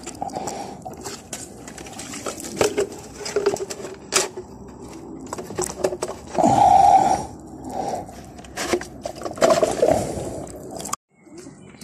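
Handling noise: a phone's microphone rubbing and scraping against a hoodie as it is carried, with scattered knocks and a brief louder sound about halfway through. The sound cuts out for a moment near the end.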